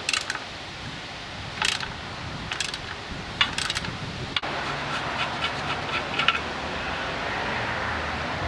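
Socket ratchet with a 10 mm Allen bit clicking in four short bursts as a plug is tightened into the sensor port of a catalytic converter pipe. In the second half, lighter small metallic clicks of parts being handled, over a faint low hum.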